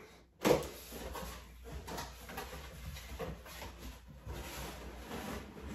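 Cardboard box being opened by hand, its flaps scraping and rustling as they are pulled open and folded back. A louder sharp sound comes about half a second in.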